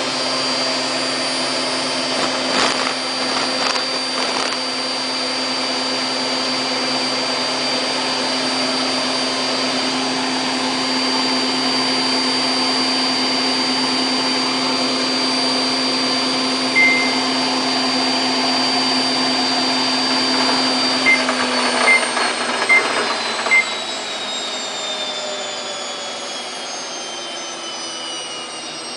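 Samsung WF8804RPA front-loading washing machine spinning its drum at 1400 rpm, a steady motor whine. One short beep sounds, then about 21 seconds in four quick beeps follow and the spin starts winding down, its whine falling in pitch.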